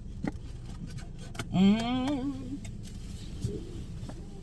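A woman's drawn-out hummed "mmm", about a second long, rising and then wavering in pitch, as she tastes fried okra. A few small clicks and a low steady hum lie underneath.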